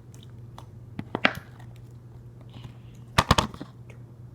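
Sticky slime being handled by hand, giving small clicks and crackles, with two short clusters of loud sharp snaps, one about a second in and a bigger one a little after three seconds. A steady low hum runs underneath.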